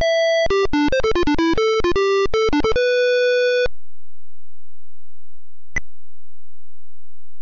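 Synthesized computer tones playing back a handwritten melody as read by the score-recognition software: a quick run of single notes, ending on a held note about three and a half seconds in. About two seconds later a single short high beep sounds over a faint low hum.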